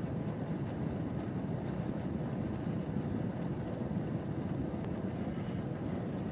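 Steady low rumble and hum inside an Intercités passenger coach standing at a station platform, with a faint constant tone running through it.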